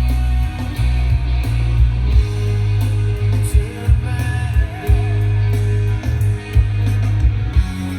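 Rock song with guitar, vocals and drums played back through Edifier R1280DBs bookshelf speakers and an Edifier T5 subwoofer, with the subwoofer's low-pass and bass level turned fully up. Heavy, sustained bass notes dominate, with regular drum hits.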